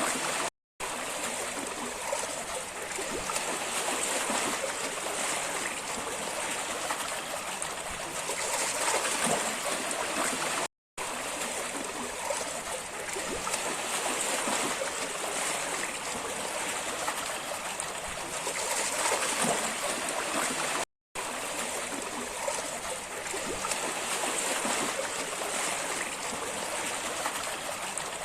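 Steady rushing, splashing water, broken by three brief moments of silence about ten seconds apart.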